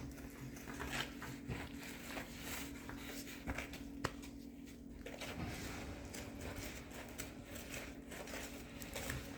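Faint scraping and light clicks of a spoon stirring brownie batter by hand in a bowl, over a steady low hum.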